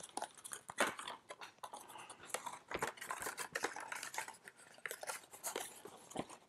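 Stiff card stock crackling and rustling as a freshly cut paper sculpture is bent open and unfolded by hand, in soft, irregular clicks and crinkles.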